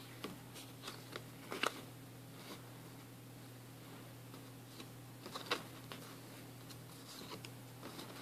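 Stiff photo cards handled and shuffled one at a time: soft paper slides and taps, the clearest about a second and a half in and again about five and a half seconds in, over a faint steady hum.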